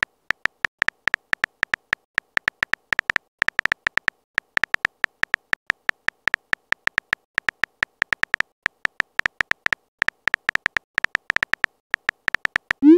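Simulated phone-keyboard typing clicks from a texting-story app: a quick, irregular run of short, identical ticks, several a second, as a message is typed letter by letter. It ends in a short rising swoosh as the message is sent.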